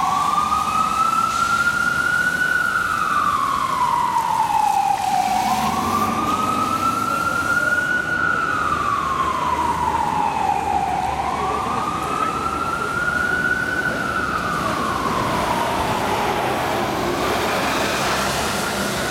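Fire engine siren on a slow wail over street traffic noise, rising and falling in pitch about every five and a half seconds. It grows slightly fainter toward the end as the engine pulls away.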